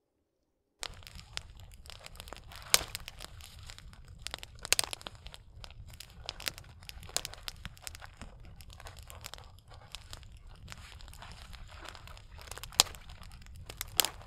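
Dry tinder and kindling crackling and crinkling, with irregular sharp snaps, the loudest a few times through the clip.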